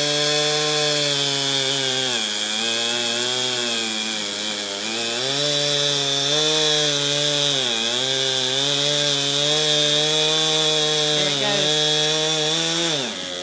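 Husqvarna chainsaw running at high speed while cutting into a tree trunk on the felling cut. Its engine pitch sags and recovers several times under the load, and drops sharply near the end.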